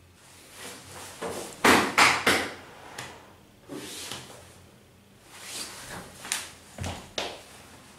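Clothing rustling and a few short knocks and thumps as two people embrace and then step apart, with a cluster of three sharper ones about two seconds in.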